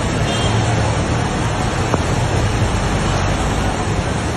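Flash-flood torrent of muddy water rushing steadily, a loud, even rushing noise. A brief click about two seconds in.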